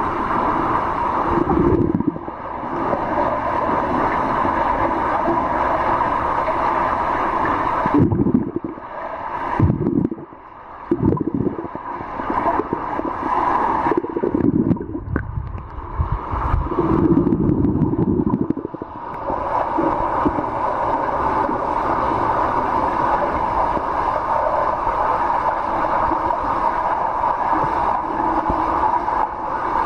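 Underwater sound of a swimming pool, heard from a camera below the surface: a steady rushing hum, which turns uneven and dips for several seconds midway, with muffled churning from swimmers kicking.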